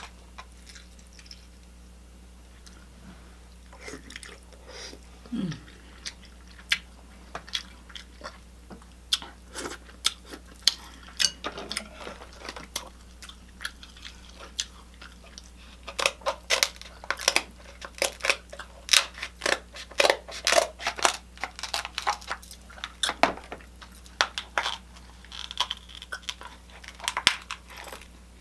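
A person eating a seafood boil close to the microphone: wet chewing and lip-smacking mixed with sharp cracks and crunches. These are sparse at first and come thick and fast from about halfway through.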